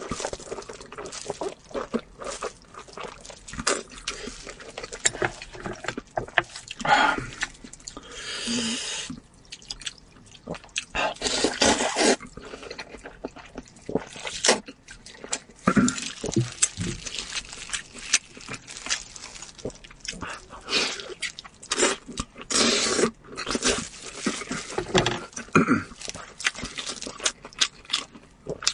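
Close-miked eating: crunchy bites and chewing of raw zucchini, then long, wet slurps of sour-and-spicy sweet-potato noodles from the broth, with irregular clicks and smacks of chewing throughout. Near the end, gnawing meat off a braised lamb chop.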